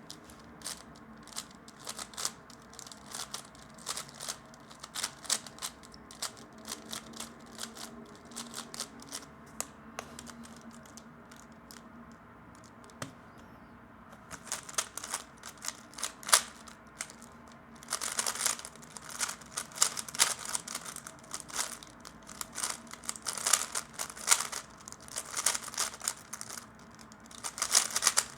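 A 3x3 speedcube being turned in a solve: quick plastic clicks and clacks of its layers, sparser at first with a short lull about twelve seconds in, then a dense, fast flurry from about eighteen seconds on.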